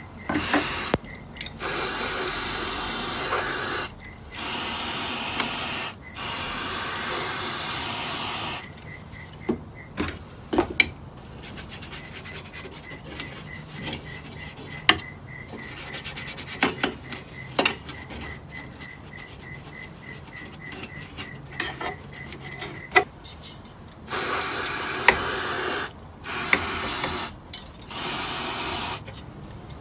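Aerosol cleaner sprayed through a straw nozzle onto an old steel radio chassis: several long hisses one after another. Then comes a stretch of a small brush scrubbing and ticking against the metal, and three more spray hisses near the end.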